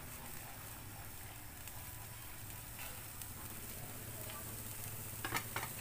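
Soy-sauce braising sauce bubbling steadily at a boil in a stainless steel pan, stirred with a wooden spatula at first. A few light clicks come near the end.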